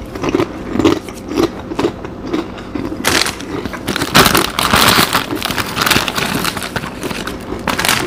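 Mouth chewing with soft regular crunches about twice a second. About three seconds in, a foil snack-chip bag starts crinkling loudly as a hand rummages inside it, and this goes on until near the end.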